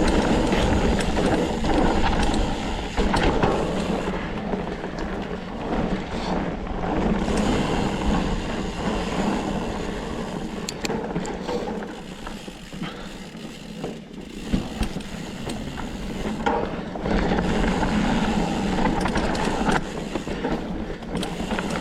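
Hardtail mountain bike rolling over a rocky trail: tyres crunching on rock and dirt, with the frame and parts clattering and knocking over the bumps. There is a constant low rumble, and it eases off for a few seconds around the middle.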